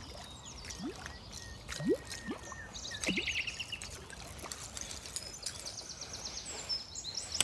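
A topwater lure being twitched across the water surface, making a few short splashy bloops in the first three seconds, while songbirds sing.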